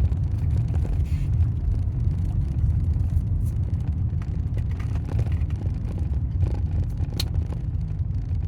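Vehicle driving, heard from inside: a steady low rumble from the engine and road, with a few scattered clicks and rattles from the camera holder.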